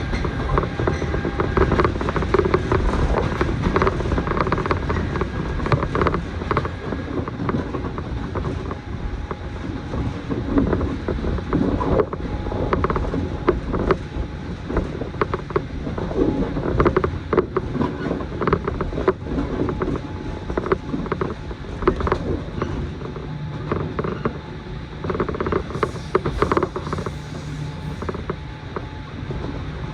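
Moving passenger train heard from inside the carriage: a steady rumble of wheels on rail with frequent creaks, clicks and rattles from the car body. A faint steady hum joins in about three quarters of the way through.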